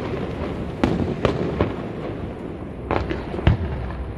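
Aerial fireworks display: about half a dozen sharp bangs from bursting shells, in two quick clusters, over a steady low rumble.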